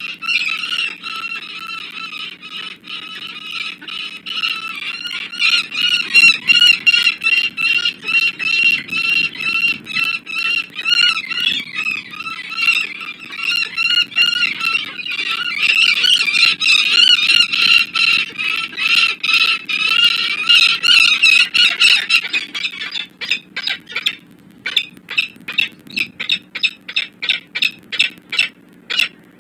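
Peregrine falcons giving harsh, rapidly repeated alarm calls (cacking) during a territorial fight between males. The calls run almost unbroken, then about two-thirds of the way through break into separate sharp notes at about four a second that thin out near the end. A steady low hum runs underneath.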